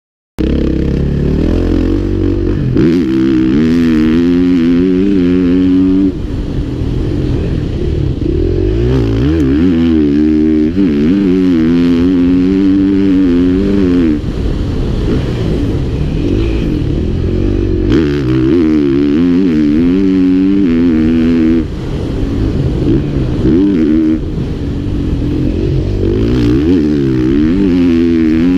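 KTM 450 SX-F motocross bike's single-cylinder four-stroke engine heard on board, cutting in suddenly at the start, then revving up and falling back again and again as the rider accelerates, shifts and rolls off the throttle, with several brief dips in loudness.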